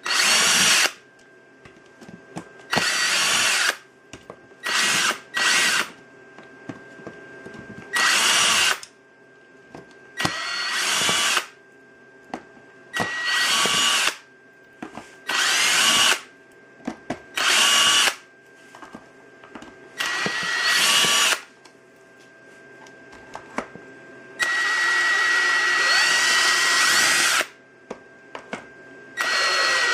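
Cordless drill driving a Torx bit, run in about a dozen short bursts of a second or so each as it backs out the housing screws one by one, with one longer run of about three seconds near the end.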